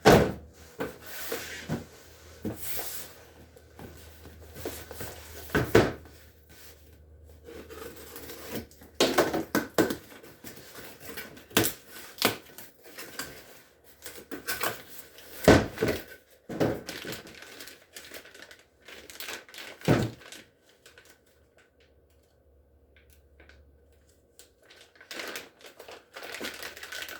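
Unboxing handling noise: the hard plastic carrying case and packaging being handled, with irregular knocks and clunks and some crinkling of packaging. It goes quieter for a few seconds past the middle.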